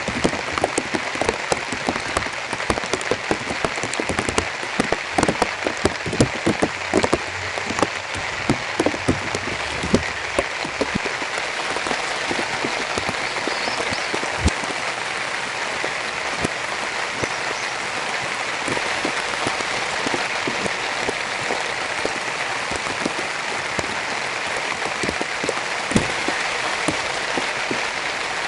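Heavy rain falling, with many sharp individual drop hits through the first ten seconds or so, then settling into a steady dense hiss.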